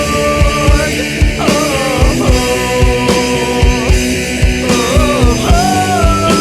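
Rock band playing live: distorted guitars and a held, bending melody line over a drum kit with regular kick-drum beats.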